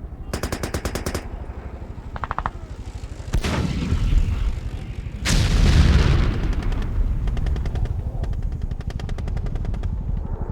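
A battle sound effect: machine-gun bursts and two heavy explosions over a constant low rumble. A sharp burst opens it and a short one follows about 2 s in. Explosions land about 3.5 and 5 seconds in, the second the loudest. Quieter, more distant-sounding bursts of fire run through the last few seconds.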